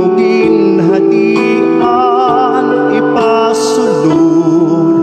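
A slow song: a singer holding long notes with vibrato over keyboard accompaniment.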